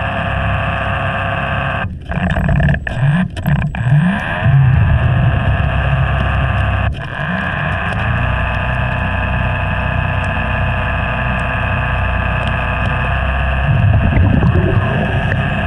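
Underwater recording of a motorboat engine: a steady, multi-toned whine that glides in pitch a few seconds in and again around eight seconds in. Several sharp knocks come early on, and a low bubbling rumble near the end.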